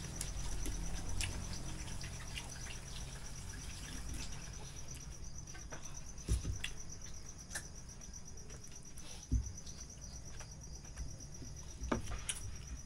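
Crickets chirping in a steady, fast pulsing trill, with a few scattered soft clicks and knocks from people eating by hand at a table.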